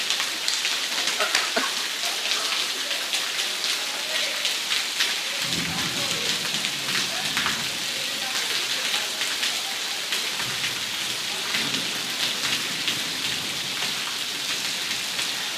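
Heavy rain falling on a wet paved yard: a steady hiss thick with the patter of drops. A low rumble comes in for about five seconds in the middle.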